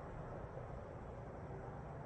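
Faint steady background noise, a low rumble and hiss with no distinct events.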